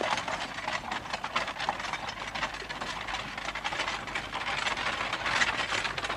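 Horse-drawn carriage on the move: hooves clip-clopping and wheels rattling in a dense, continuous clatter.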